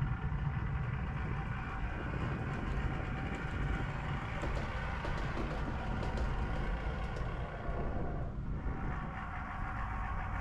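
Model train running along the layout's track: a steady rumble with a constant motor hum and faint light clicks from the wheels.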